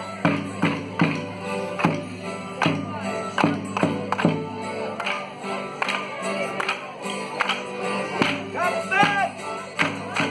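Folk band music for a Border Morris stick dance, with sharp clacks of wooden morris sticks struck together in time, roughly one every second.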